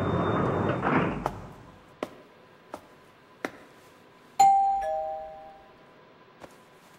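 Apartment intercom doorbell pressed about four and a half seconds in: a two-note chime, a higher tone then a lower one, ringing out over about a second. Before it, a few evenly spaced footsteps on a hard tiled floor, after a rushing noise fades out near the start.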